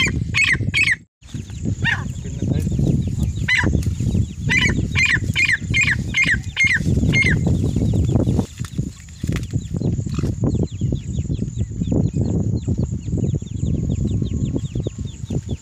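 Female francolin (teetar) calling: a quick run of short, repeated notes, about two to three a second through the first half, then fainter calls. A loud low rumbling noise runs underneath.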